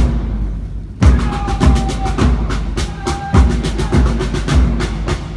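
Parade marching drum beat: bass drum strokes about every 0.6 s, with snare taps between, keeping the pace for marching in step. A steady held tone sounds twice over the beat in the middle.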